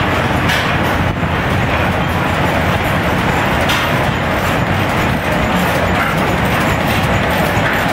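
Several antique flywheel stationary gas engines running together, a dense, steady mechanical clatter.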